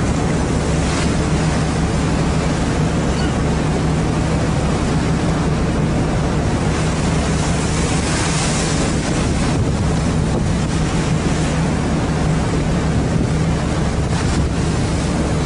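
A fishing boat's engine drones steadily at sea, with a constant low hum under the rush of wind and water. Wind gusts on the microphone swell briefly about halfway through.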